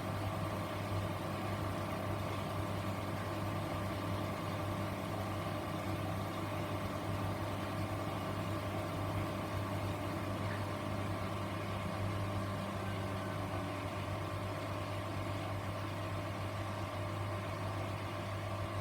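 Grundig washing machine running: a steady low hum with a constant motor whine, unchanging throughout.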